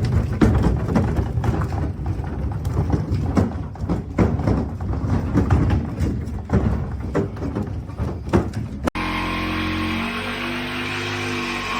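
A heavy piece of furniture moved over cobblestones, making an irregular rattling rumble with many knocks. It cuts off suddenly about nine seconds in, and a steady sound of several held tones follows.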